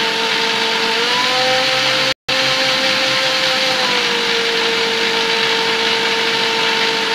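Electric mixer grinder running at speed, blending curd, sugar, ice and water into lassi: a steady motor whine that steps up in pitch about a second in and back down about four seconds in as the speed knob is set. The sound cuts out for an instant a little after two seconds.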